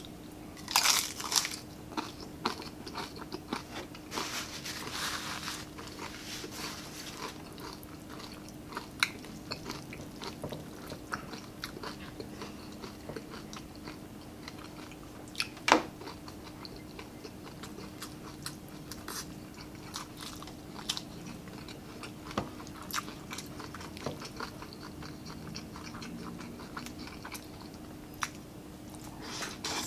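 Close-miked eating of deep-fried crispy pork belly: a loud crunch of the crackling skin being bitten about a second in, then chewing with scattered crisp crackles and one louder sharp crunch near the middle, over a faint steady hum.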